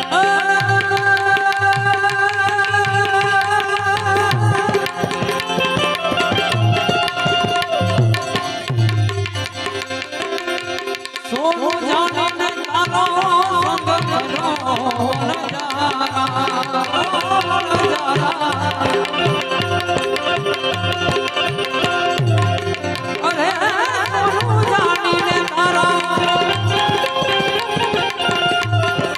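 Instrumental passage of Indian folk music: a tabla-style hand drum keeps a steady beat under a melody instrument playing wavering, ornamented runs.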